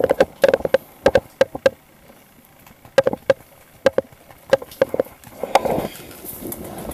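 Wire dog crate rattling and clanking as it is handled: runs of sharp metallic clicks and knocks, with a short lull about two seconds in.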